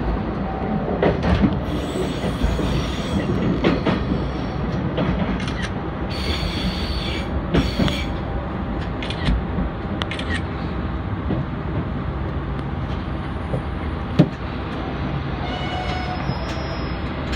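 Moka Railway diesel railcar running slowly over jointed track and points, wheels clicking and squealing at times, as it brakes to a stop at a platform.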